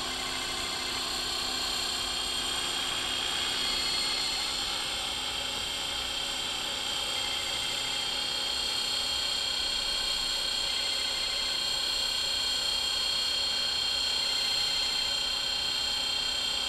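ALIGN 500 DFC electric radio-controlled helicopter in flight, its motor and rotor giving a steady whine with high tones over a rushing blade noise.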